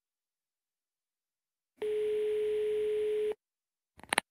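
Telephone line tone: one steady tone about a second and a half long, then a few sharp clicks near the end as the call is picked up by the answering machine.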